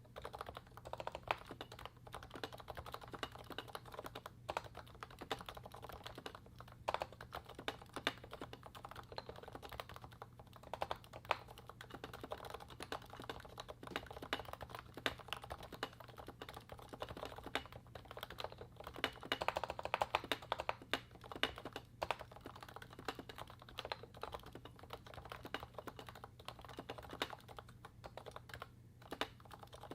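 Continuous fast typing on a Realforce 87U tenkeyless keyboard with Topre 55 g switches, fitted with Novatouch sliders lubed with Tribosys 3204 and sculpted PBT DEV/TTY MT3 keycaps. It is a dense, uneven stream of short, dull keystrokes with a few louder strikes scattered through.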